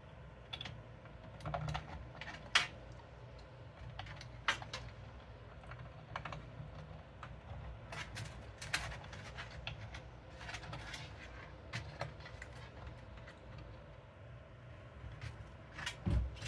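Irregular small clicks and taps of cables and plastic connectors being handled and plugged in inside a computer case, with a dull thump near the end.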